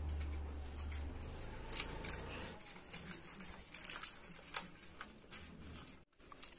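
Two children eating popcorn from steel plates with their mouths: faint crunching and munching with scattered small clicks.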